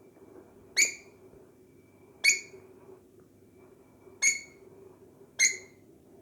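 Pet bird giving four short, loud, shrill calls, about one every one and a half to two seconds.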